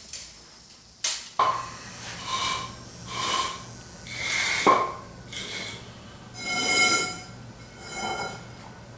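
Square steel tubing and wooden blocks being handled and shifted on a concrete floor: a few sharp knocks and a series of short scraping sounds with a metallic ring.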